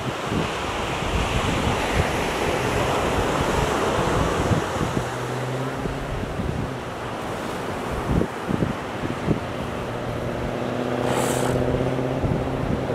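Surf breaking on a beach with wind rumbling on the microphone. Twice in the second half a low, steady pitched drone sounds over it, once for about two seconds and then for about three, and there is a brief hiss just before the end.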